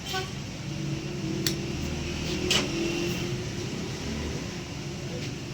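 A steady low mechanical hum, with two sharp clicks about a second apart near the middle.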